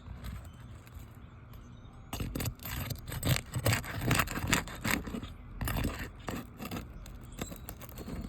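Asphalt roof shingles being pried up and worked loose with a tool, a run of short scrapes and crackles starting about two seconds in.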